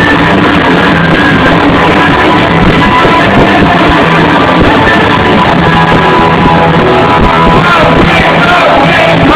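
Live punk rock band playing loud, with electric guitar, double bass and drums, heard through a phone microphone that dulls the top end.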